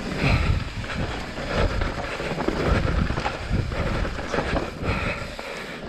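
A 2019 YT Jeffsy 27.5 mountain bike descending a trail at speed: tyres rumbling over dirt and roots, the bike rattling with many irregular knocks over the bumps, and wind buffeting the microphone.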